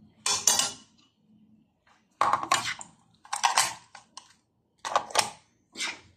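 Metal spoon scraping and clinking against a nonstick frying pan while shell-on shrimp are stirred, in about five short strokes with brief pauses between them.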